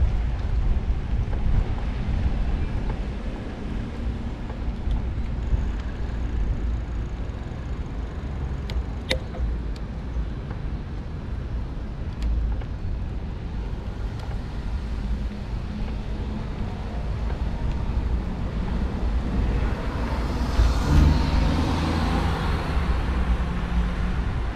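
Wind rumbling on the microphone with road noise from a bicycle riding along a street. There is a sharp click about nine seconds in, and a car swells past about twenty seconds in.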